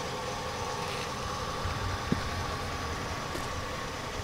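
Steady mechanical hum with a faint whine held at one pitch, and a single sharp click about two seconds in.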